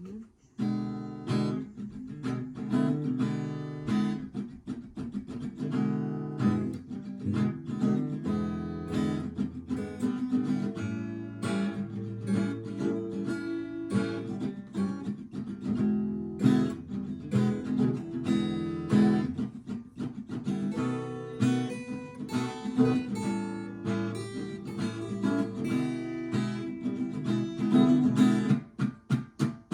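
Acoustic guitar strummed in a steady rhythm, the instrumental intro to a blues song with no singing yet. Near the end it changes to a few separate, sharply struck chords.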